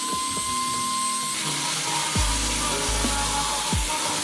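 Background music with a deep, regular bass beat over power-tool sanding. A high motor whine sounds for the first second or so, then an angle grinder's abrasive wheel rubs across a plastic motorcycle fairing panel.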